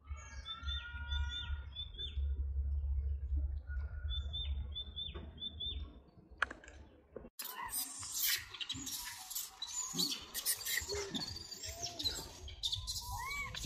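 Birds chirping in short repeated phrases over a steady low rumble. About seven seconds in, the sound cuts to a noisier mix of rustling, clicks and short high squeaks.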